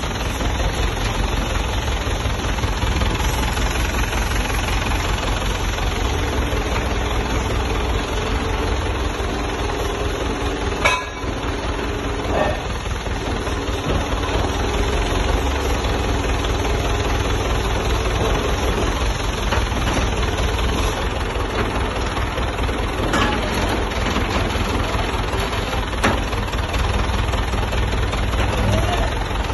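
Diesel engine running steadily at idle with a deep, low throb. There is a single sharp knock about eleven seconds in.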